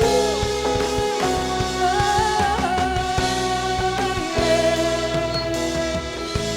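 Live worship band playing an instrumental passage with guitar over sustained chords that change about a second in and again after about four seconds.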